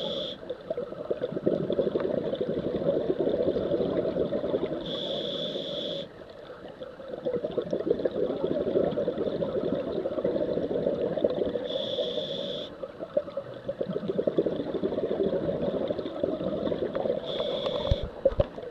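Scuba diver breathing through a regulator underwater: a short hiss on each inhale, then a long crackling rush of exhaled bubbles. The cycle repeats about every six seconds, with inhales near the start, about five seconds in, about twelve seconds in and near the end.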